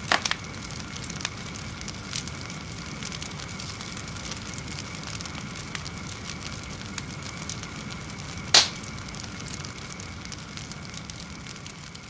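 Large log bonfire crackling, with scattered sharp pops and snaps; the loudest pop comes about eight and a half seconds in.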